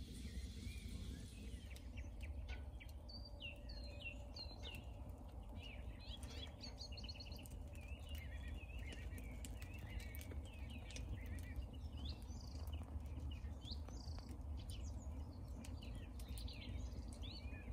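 Small birds chirping and singing from a couple of seconds in, over the crackling and popping of a wood campfire and a steady low rumble.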